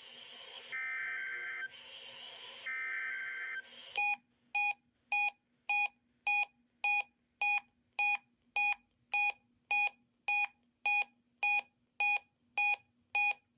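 Emergency Alert System SAME header on weather radio: two short bursts of warbling digital data tones, about a second each, marking the start of a required weekly test. Then a long, even run of identical buzzy electronic beeps, nearly two a second.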